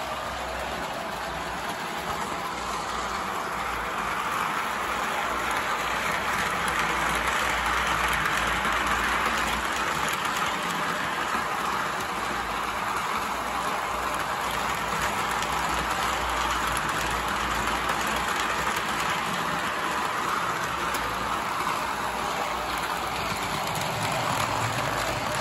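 Model electric subway train running on three-rail track: a steady rolling rumble of wheels and motor that grows louder over the first several seconds as it comes closer, then holds.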